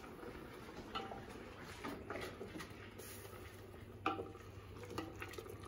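A few faint knocks and clinks of a wooden spoon against a stainless-steel stockpot as vegetable stock is stirred, the loudest just after four seconds with a short metallic ring.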